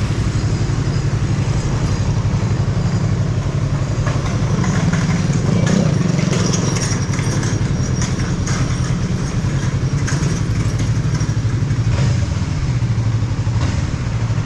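Motorcycle engine running steadily at low revs, a low, even drone that holds the same pitch throughout.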